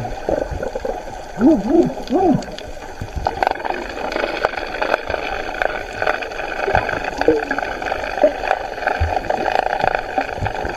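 Muffled water sound picked up by a camera held underwater: a steady gurgling wash of water, with a few short warbling sounds in the first two or three seconds and scattered faint clicks.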